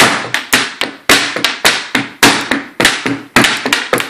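A toddler beating a drum with sticks in a steady beat: a loud stroke about every half second, with lighter taps between, each stroke ringing briefly.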